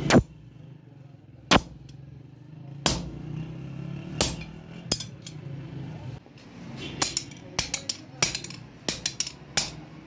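Hammer blows on a sickle blade held on a steel anvil during forging: single sharp strikes about a second and a half apart, the first ones loudest, then a quicker run of lighter strikes, about three a second, in the last three seconds.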